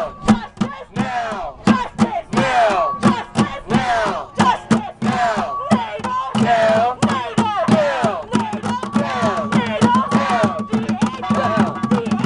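Plastic bucket drums beaten with sticks in a fast, busy rhythm, with a crowd of voices shouting chants over them.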